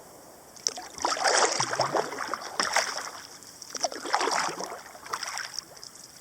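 Kayak paddle strokes splashing and sloshing through the water, in four surges about a second and a half apart.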